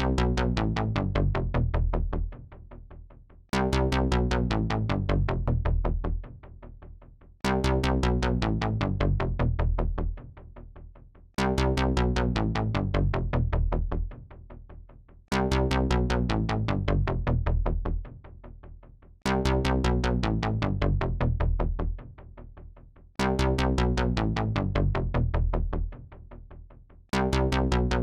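Synthesizer chord sample, the same chord played over and over about every four seconds; each time it sounds as a fast pulsing pattern that drops in level about two and a half seconds in before the next one starts.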